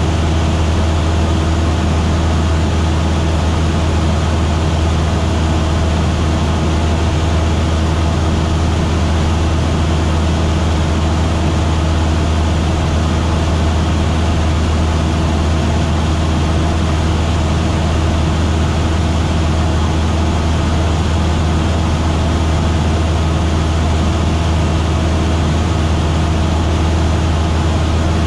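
Single-engine light aircraft's piston engine and propeller running steadily in cruise flight, a constant low drone with rushing air noise over it.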